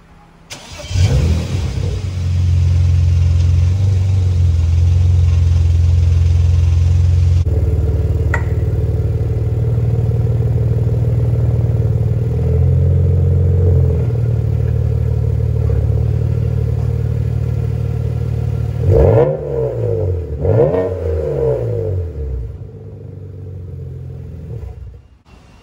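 BMW E90 3 Series inline-six engine and exhaust, catching with a rev flare about a second in, then running steadily at low speed as the car rolls into the bay. Two quick revs come near the end, and the sound cuts off abruptly just before it ends.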